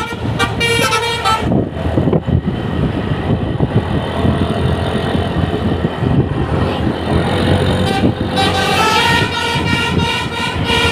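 A bus's telolet basuri musical horn playing a tune of stepped tones. About a second and a half in it gives way to loud engine and road noise, and the horn tune starts again about eight seconds in.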